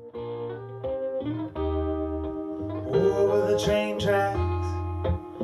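Background music: a guitar-led song with a bass line, starting suddenly out of silence.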